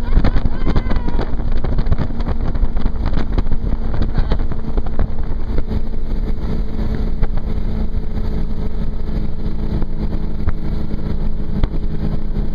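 RPM 26' Red Line powerboat running steadily at speed, its engine note holding a constant pitch over a loud rush of wind and water. The engine's hum grows clearer about five seconds in.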